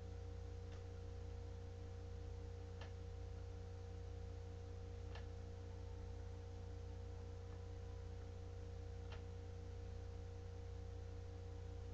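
Steady electrical hum and hiss of a webcam recording, with a few faint, scattered clicks.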